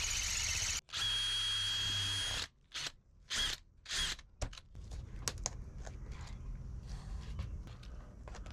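Power drill drilling out a pop rivet in a pop-up camper's screen door track, running steadily with a high whine. It stops just under a second in, runs again for about a second and a half, then gives two short bursts. Faint clicks and handling noise follow.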